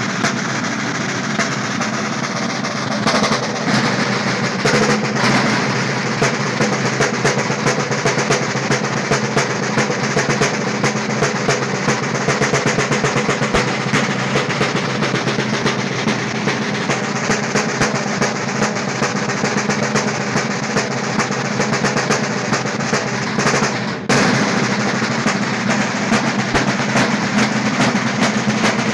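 Several large Sicilian tamburi (field drums) played together with sticks: fast, continuous drumming with rolls. It breaks off for an instant near the end, then carries on.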